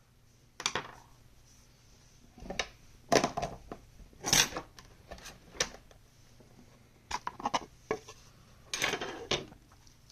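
Small metal tools clinking and clattering against each other and a hard surface, in about seven short separate bursts.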